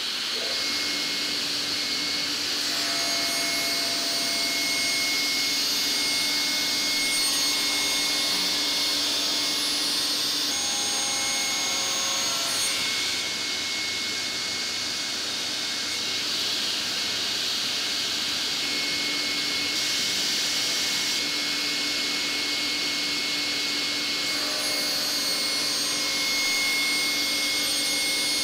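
Altendorf sliding table saw running steadily at full speed, just up to speed at the start, while a rough board is fed through the circular blade. The sound shifts for a while in the middle as the blade cuts.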